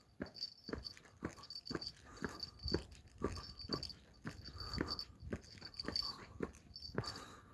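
Japanese railway level-crossing alarm bell ringing in a steady rhythm, about two strikes a second, as the crossing is closed for a train.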